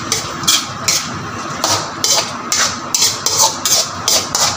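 Spatula scraping and turning chicken and vegetables in a nonstick wok, in quick repeated strokes about two to three a second.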